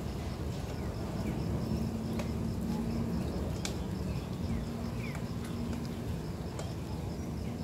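Outdoor ambience among trees: a steady, fast-pulsing high insect call over a low rumble, with a low hum that comes and goes and a few faint clicks and short chirps.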